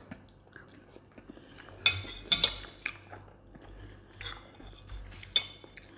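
Metal forks clinking and scraping against ceramic bowls and plates, a few sharp clinks bunched about two seconds in and more near the end, with quiet chewing between them.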